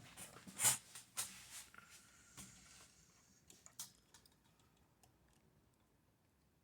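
Thin pointed metal rod picking at a C-clip under the typewriter, metal on metal, in a string of short sharp clicks and scrapes. The loudest click comes about half a second in, and they thin out after about four seconds.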